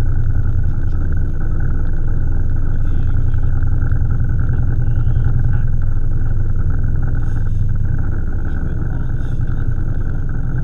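Fishing boat's engine running steadily, a constant low drone with a fast even pulse, with a few faint light clicks over it.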